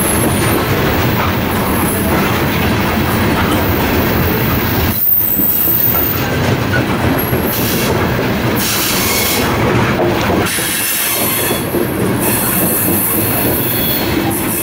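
Covered hopper cars of a grain train rolling past close by: a steady rumble of steel wheels on rail, with thin high-pitched wheel squeals at times. The last cars go by near the end.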